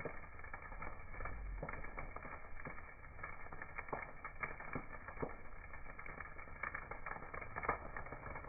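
Wood campfire burning, crackling with irregular sharp pops over a soft steady hiss.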